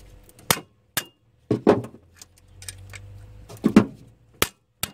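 Several sharp, irregularly spaced metallic knocks and clinks from a socket wrench on the alternator's seized output-terminal nut, as the wrench is shock-loaded with sudden jerks to try to crack the nut loose.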